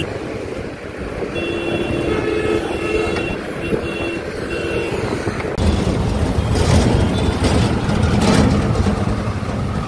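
Road traffic: from about a second in, a vehicle sounds a run of electronic beep tones that step between several pitches for about four seconds. Then, from about halfway, the louder rumble of a passing motor vehicle's engine and tyres takes over.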